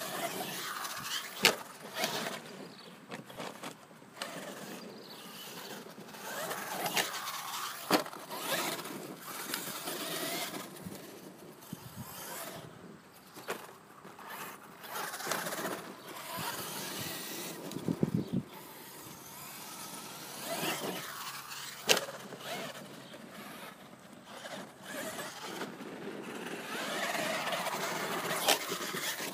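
Team Magic E6 Trooper 1/8-scale electric RC monster truck driving over dirt, its motor whine rising and falling with the throttle over tyre noise on the loose ground. A few sharp knocks come at intervals, the truck landing or hitting the ground.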